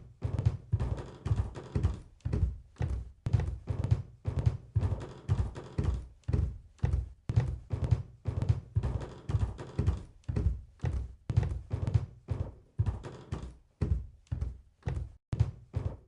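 Heavy footfalls of large animals thudding in a steady rhythm, about two a second: a stampede sound effect.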